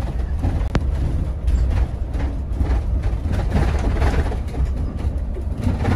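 Cabin of a moving coach bus: steady low engine and road rumble with frequent light rattles from the bus's fittings.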